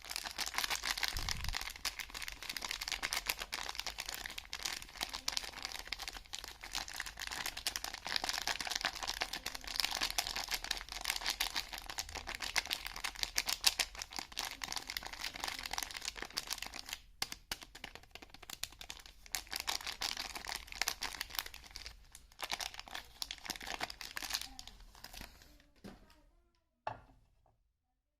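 Soap wrapping being crinkled and torn open by hand: a long, dense crackling made of many small snaps, with a brief pause a little past the middle, stopping near the end.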